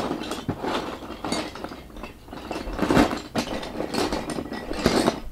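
Wooden Lincoln Logs clattering and knocking together as a hand rummages through a clear plastic storage bin full of them, in several irregular bursts of clicks.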